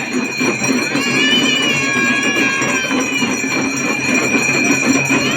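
Damru hand drums rattling in a fast, continuous rhythm, over a steady high ringing.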